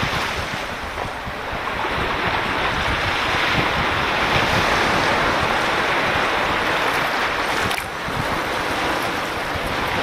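Small sea waves washing in over shallow, seaweed-covered shore water close to the microphone: a continuous wash of surf that swells and eases, with brief lulls about a second in and just before eight seconds. Wind buffets the microphone underneath.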